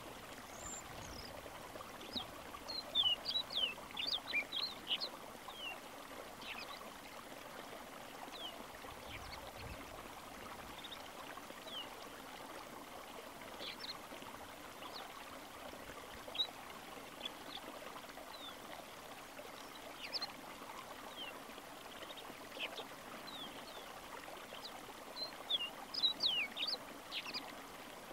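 Snow bunting giving short, high chirping calls, in a thick cluster a few seconds in and another near the end, with scattered single calls between, over the steady rush of a stream.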